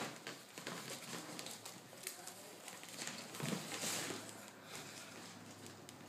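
Clear plastic packaging crinkling and rustling as hands work it open, with scattered light clicks and taps, a bit louder a little past halfway.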